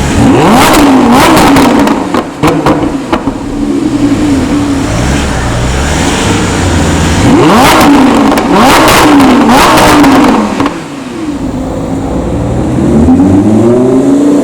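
High-performance car engine accelerating hard twice, its pitch climbing and dropping back with each quick upshift. Sharp exhaust cracks follow the first pull, and a slower build-up begins near the end.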